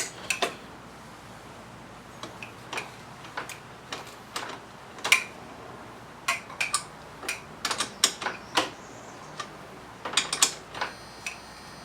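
Torque wrench ratcheting on a motorcycle exhaust's mounting clamp bolt: irregular sharp metal clicks, some in quick clusters.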